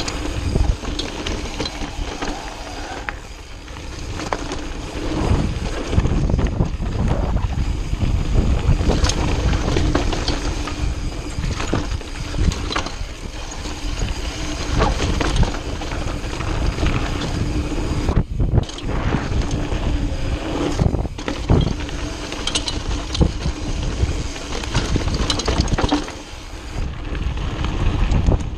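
Downhill mountain bike running fast over a dirt and rock trail: rumbling wind buffeting on the bike-mounted microphone, with tyres crunching over gravel and the chain and frame rattling and knocking over bumps.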